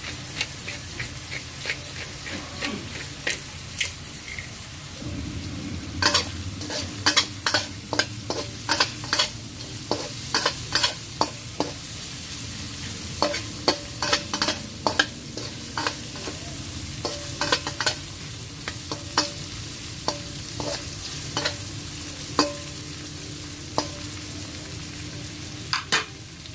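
Shrimp, Chinese sausage, garlic and onions sizzling in hot oil in a stainless steel wok. A spatula stirs them, clicking and scraping against the wok many times, most often from about six seconds in.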